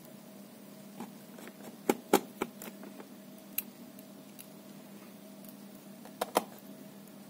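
Scattered sharp clicks and taps from small metal parts and the laptop palmrest frame being handled by hand. The loudest come as two quick double clicks, about two seconds in and again near the end, over a steady low hum.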